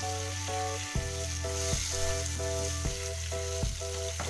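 Chicken livers and gizzards in spice paste sizzling in a frying pan as they are stirred with a spatula, a steady hiss. Background music plays alongside, a tune of held notes over a steady bass, changing about once a second.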